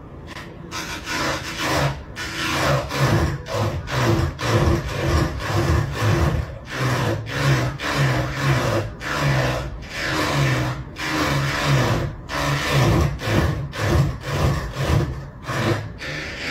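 A cat's paw rubbing and scraping over the front of a small round device in a steady rhythm, about two rasping strokes a second, each with a low hum under it that shifts in pitch.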